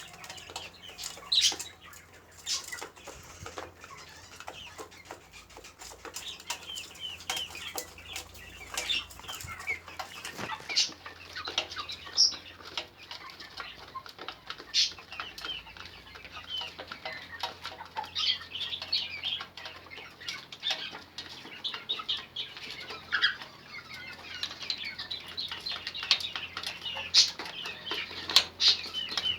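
A group of birds at feed, fluttering their wings and giving many short, high chirps, with scattered sharp clicks.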